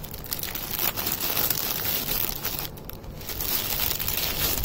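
Clear plastic packaging crinkling and crackling as cellophane-wrapped makeup brushes are handled and spread out, with a brief lull about three seconds in.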